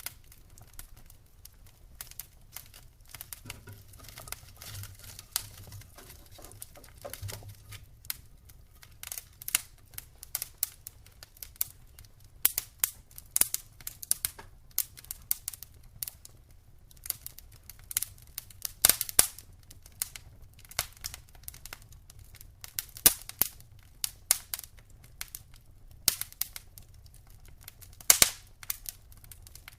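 Wood fire burning in a fireplace, crackling with irregular sharp snaps and pops, several of them louder, over a faint hiss.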